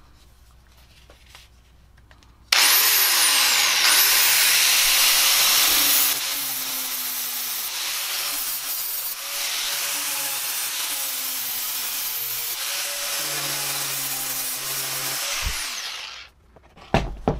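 Bosch angle grinder with a flap disc started about two and a half seconds in and run against metal to clean its surface, loudest for the first few seconds, then steadier and a little quieter. It is switched off near the end and winds down.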